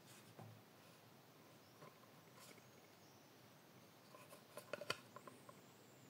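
Near silence, then about four seconds in a quick run of small clicks and knocks, the loudest just before five seconds: a small painted panel being handled and turned on a little wooden tabletop easel.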